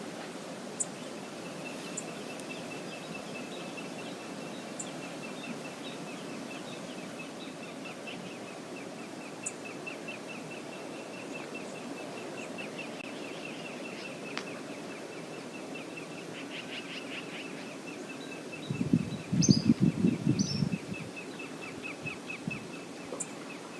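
Steady rush of river water, with a small bird calling in a long, rapid series of high chips. About two-thirds of the way through, a loud low thumping burst lasts about two seconds.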